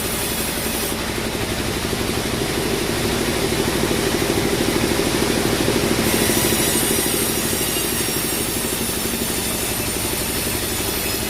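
Bandsaw sawmill machinery running: a steady engine drone with a fast, even pulsing, growing a little louder in the middle.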